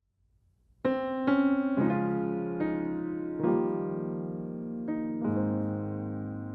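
Background piano music: slow, gentle notes and chords that ring out and fade, starting about a second in.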